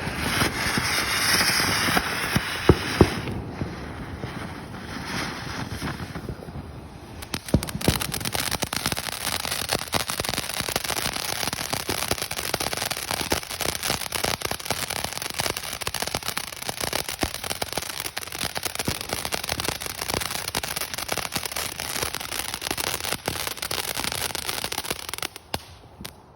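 Consumer 'Sailor' firework going off: a hiss with a few sharp pops at first, then dense, rapid crackling from about seven seconds in that cuts off abruptly just before the end.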